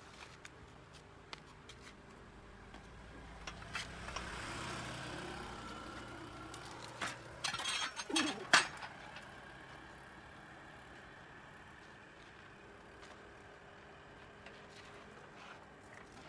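A heavy log on a small steel-framed wheeled dolly being handled and pushed over concrete: a low rumble swells and fades, then a quick cluster of knocks and metallic clinks about eight seconds in, followed by faint steady rolling noise.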